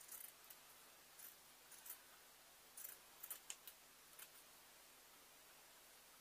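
Scissors snipping through thick fleecy fabric, cutting out a pattern piece: a faint series of short, irregular snips, mostly in the first four and a half seconds.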